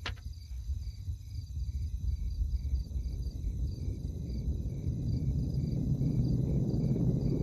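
Crickets chirping in an even pulsing rhythm, a few chirps a second, in a night soundscape. A low rumble builds up beneath them over the last few seconds.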